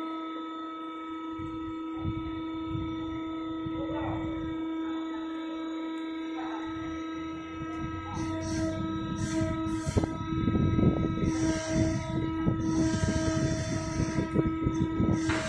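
Heavy industrial machinery running with a steady hum of several held tones. About halfway through, louder irregular rattling and scraping sets in, broken by short hissing bursts.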